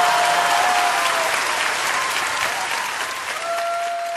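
Audience applauding at the end of a live song, with a long high held cheer at the start and again near the end; the applause fades out at the close.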